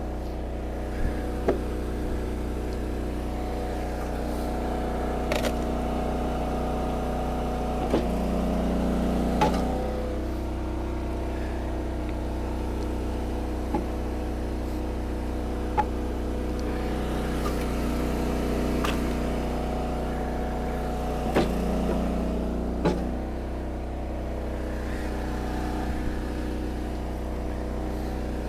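Gas engine of an Eastonmade 22-28 hydraulic log splitter running steadily while rounds are split, with sharp knocks and cracks from the wood on the wedge every few seconds. Twice the engine's note thickens for a couple of seconds as the ram pushes under load.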